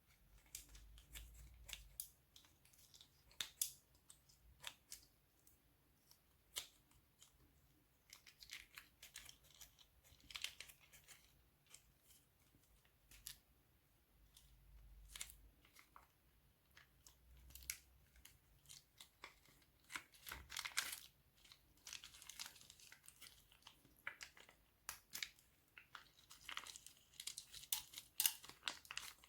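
Plastic piping bags and slime being handled: quiet, scattered crinkles and sharp clicks, in thicker clusters a third and two thirds of the way through and near the end.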